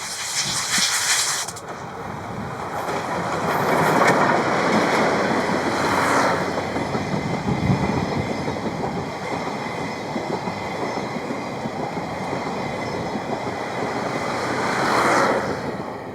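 Class C57 steam locomotive and its coaches passing over a level crossing. A high hiss of steam for about the first second and a half, then the rumble and clickety-clack of the wheels on the rails, with surges about four seconds in and again near the end.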